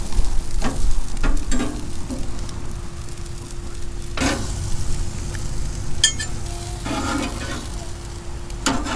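Pompano fillets sizzling on a gas grill, with a metal spatula scraping and clinking against the grill grates several times as the fillets are lifted off, the loudest scrape about four seconds in.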